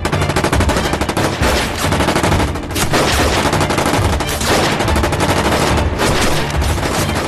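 Battle-scene gunfire from a film soundtrack: many small arms firing at once, shots overlapping in a dense, unbroken volley.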